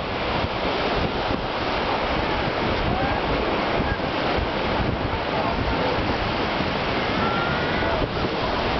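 Sea surf: small waves breaking and washing up the beach in a steady, rushing wash, with wind buffeting the microphone.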